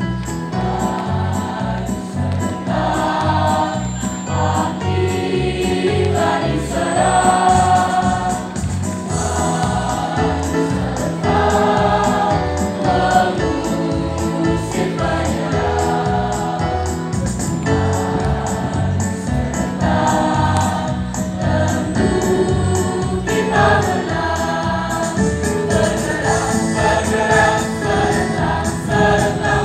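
A mixed choir of girls and boys singing an Indonesian patriotic song together, over an accompaniment with a steady beat.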